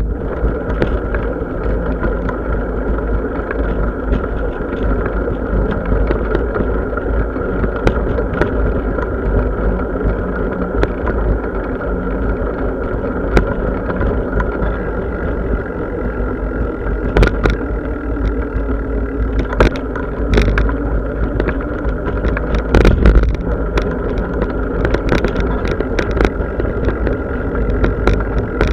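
Ride noise of a bicycle on the move: a steady low rumble of wind and tyres. Sharp knocks and rattles come several times in the second half, as the bike goes over bumps.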